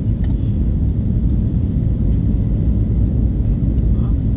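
Steady low rumble of an Airbus A321neo's engines and airflow, heard inside the passenger cabin as the airliner climbs out after takeoff.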